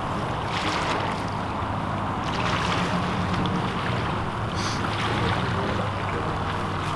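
Steady wind and surf noise at the shore, with a faint low hum underneath.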